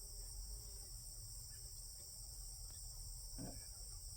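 Steady high-pitched insect chorus, with a faint low hum underneath and a soft brief knock about three and a half seconds in.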